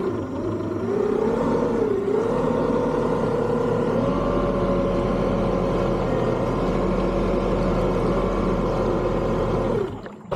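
Hangkai 48V 1200W electric outboard motor running the boat at speed: a whine that wavers and climbs in pitch over the first few seconds, then holds steady, and winds down briefly near the end.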